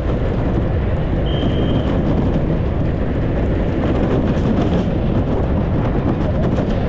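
Unpowered soapbox cart rolling fast downhill on asphalt: a loud, steady rumble from its small hard wheels and body, with frequent short rattles and jolts over the rough road surface. A brief high, steady tone sounds about a second in.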